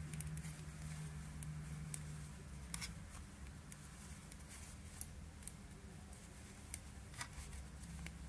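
Metal knitting needles clicking lightly and irregularly as stitches are worked, over a steady low hum.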